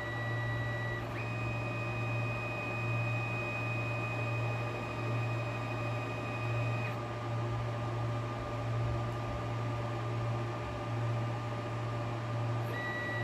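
2Create metal powder-bed 3D printer running just after its print is started: a steady machine hum with a low drone that swells and fades about once a second, and a thin high whine that steps up in pitch about a second in and drops back about seven seconds in.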